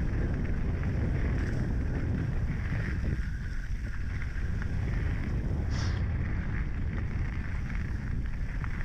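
Wind buffeting a GoPro action camera's microphone over a steady low rumble of 29er mountain bike tyres rolling on a dirt singletrack. There is a brief high squeak about six seconds in.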